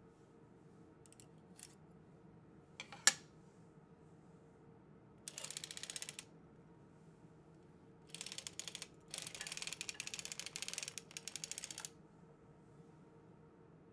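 Hand-cranked circular sock machine knitting tuck-stitch rows: runs of rapid fine clicking as the needles ride through the cams, in several spells with short pauses between them. A few single clicks come before them, one sharper than the rest about three seconds in.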